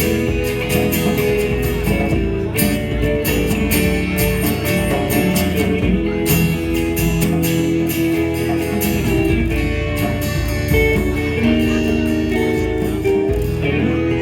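Small live band playing a rock song, guitars to the fore, with sustained notes over a steady strummed pulse.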